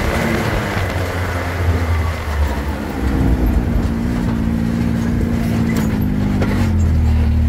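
Side-by-side UTV engine running steadily while driving over a dirt and gravel road, with road and tyre noise; the engine gets louder about three seconds in. A few sharp knocks sound near the end.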